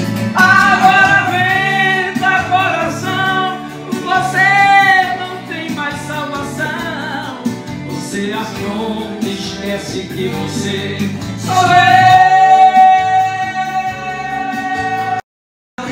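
A man singing a song into a handheld microphone. About twelve seconds in he holds one long note for roughly three seconds. Near the end the sound cuts out completely for a moment.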